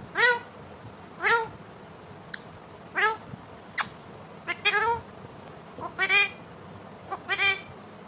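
Ring-necked parakeet giving a string of short screeching calls, about one a second, each rising and falling in pitch, with a quick double call about halfway through.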